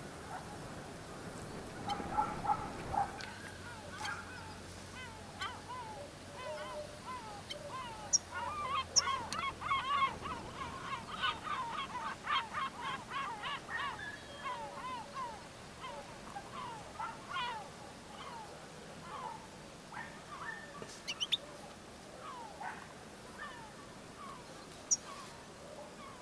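Many short honking bird calls from a flock, coming thick and fast about a third of the way in and thinning to scattered calls later.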